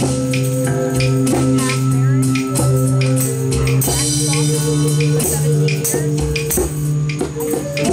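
Live band playing: held low bass and keyboard notes under a drum kit keeping a steady beat with regular cymbal strokes, and a cymbal crash about halfway through.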